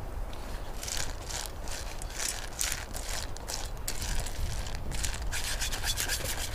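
Wet, salted piñon nuts shaken in a small pan over a Firebox stove: a rhythmic scraping rustle of nuts sliding in the pan, about two strokes a second at first, quickening to about five a second near the end. A steady low rumble runs underneath.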